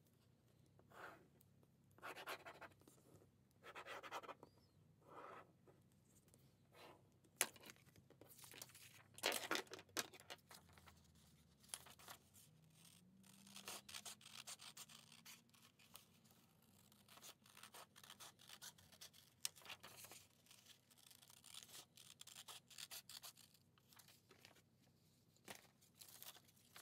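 Sheets of paper and card being handled and moved on a desk: short, irregular rustles and slides, with a louder cluster of rustling about nine seconds in.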